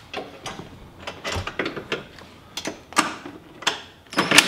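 Hand socket ratchet on a swivel extension clicking in short, irregular strokes as a 13 mm seat-mounting nut is worked loose, turning into a fast run of ratchet clicks near the end.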